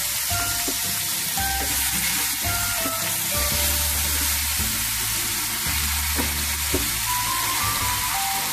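Chicken pieces frying in oil in a small pressure cooker, with a steady sizzle. Background music plays underneath.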